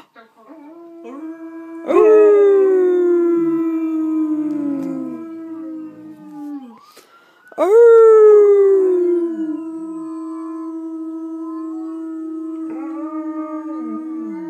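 Alaskan malamutes howling in long drawn-out howls. Two howls start high and slide down in pitch, about two seconds in and again about eight seconds in, over a second, steadier held howl.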